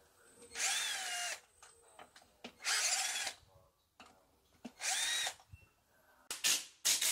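Power screwdriver spinning in short trigger bursts, backing out screws while the electric unicycle's shock absorber is taken off. There are three bursts of under a second each, about two seconds apart, each spinning up in pitch, then a few quick blips near the end.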